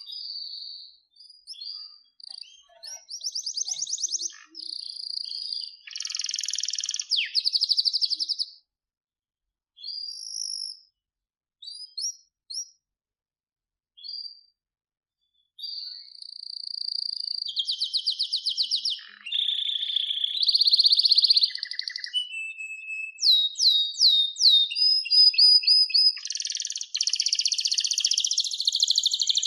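Domestic canary singing: long trilled and rattling phrases mixed with clear whistled notes. There is a near-pause of a few seconds about midway, with only scattered chirps, then a run of quick falling notes and a long fast trill to the end.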